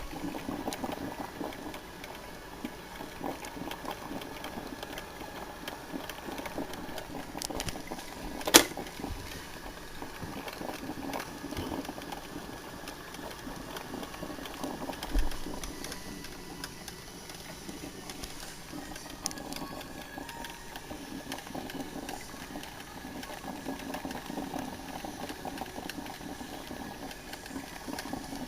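Drip coffee maker brewing, its heater sputtering and gurgling in a fast, uneven chatter, with one sharp click about eight and a half seconds in.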